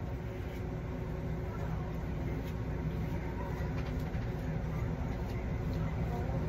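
Steady low hum of a running fan, getting a little louder, with a few faint light clicks.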